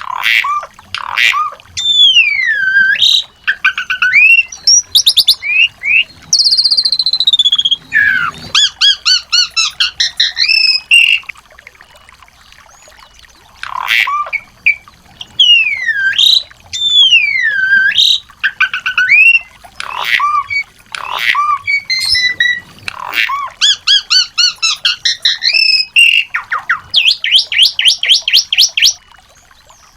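Small songbirds singing in a masteran recording: fast trills, swooping whistles and sharp chirps, with a short pause near the middle. The same run of phrases comes round again in the second half.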